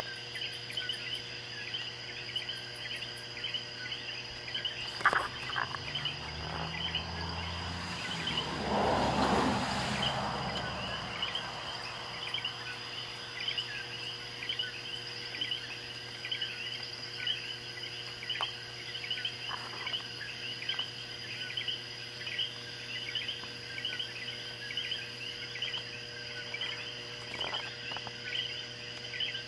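A dense night chorus of Puerto Rican coquí frogs, many overlapping short 'co-quí' calls repeating over and over. A broad rushing swell, louder than the chorus, builds and fades between about six and eleven seconds in.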